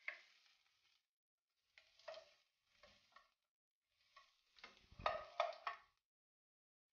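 Black plastic spoon stirring sliced onions in a little oil in a pot, in faint separate scraping strokes: one at the start, two more about two and three seconds in, and a louder cluster around five seconds in.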